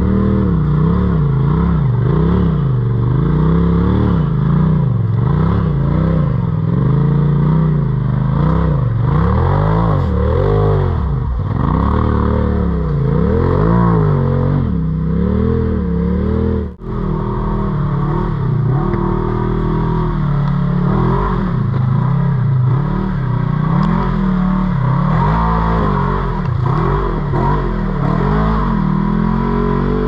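Off-road vehicle engine revving up and down over and over as it is driven over rough ground, with rattling and clattering from the machine. The sound drops out for an instant a little past halfway.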